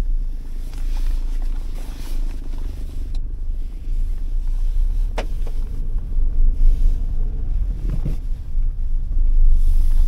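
Steady low rumble of a car heard from inside its cabin, with a couple of short clicks about three and five seconds in.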